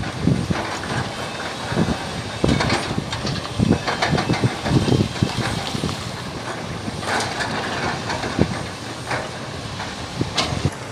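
Heavy excavator working broken rock: irregular knocks and clatter of stone on steel over a steady machine noise and hiss.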